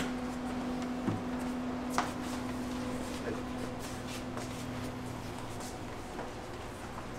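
Folding hand cart loaded with a whole bluefin tuna rolling across a tiled floor: small casters running with scattered light clicks and a sharper knock about two seconds in. A steady low hum runs underneath and drops lower near the end.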